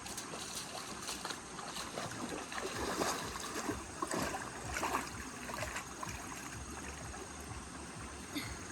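Floodwater running steadily, with a cluster of louder, irregular splashes about three to five seconds in.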